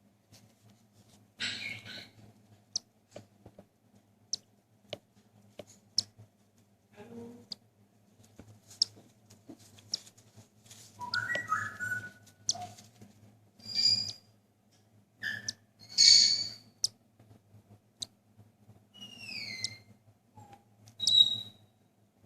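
Cockatiel chicks giving short, high begging cheeps while being hand-fed, a few of them sliding down in pitch, among faint sharp ticks.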